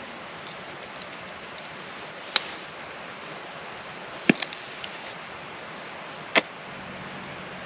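Steady outdoor hiss with a few sharp clicks or cracks: small ticks in the first couple of seconds, then louder single cracks about two, four and six seconds in.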